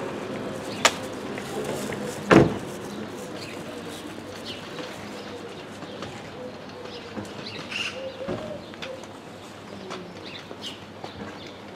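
Outdoor ambience with birds chirping now and then over a steady background murmur. A sharp click comes about a second in, and a louder thump follows just over two seconds in.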